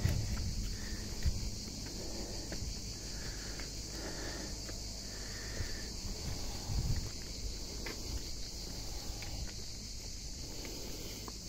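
Insects chirring steadily in one high, even band, with soft footsteps and leaf rustling on a leaf-strewn forest path.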